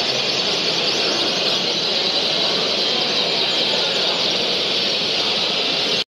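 Dense, steady chorus of many caged canaries singing and chirping at once, a continuous high twittering din, with a low murmur underneath.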